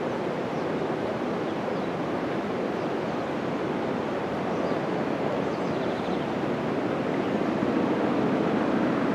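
Steady rushing of a fast-flowing river, an even, unbroken noise.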